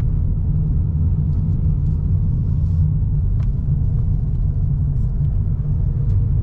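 Steady low rumble of a car driving, the road and engine noise heard from inside the cabin.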